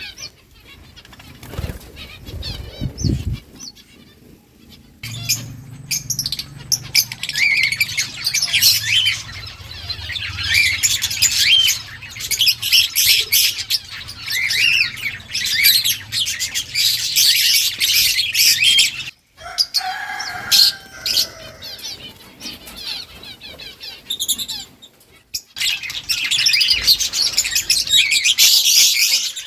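Birds chirping: a busy stream of quick, high, overlapping chirps over a faint low hum, broken off abruptly a couple of times.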